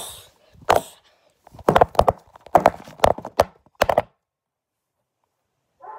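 Handling clatter: a run of sharp knocks and thumps, about a dozen over four seconds, as the filming phone and plastic toy figures are shaken and bumped about. The knocks stop abruptly about four seconds in.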